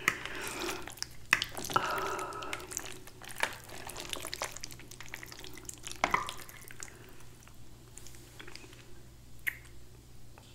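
Fork stirring and twirling fettuccine in creamy Alfredo sauce in a glass bowl: scattered wet, sticky clicks and squelches, a few of them sharper.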